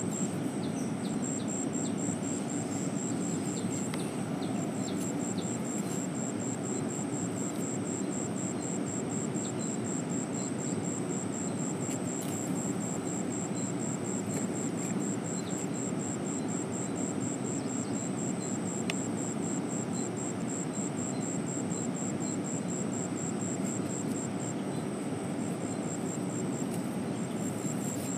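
Steady rush of a flowing river, with an insect trilling continuously in a high, rapidly pulsing tone above it.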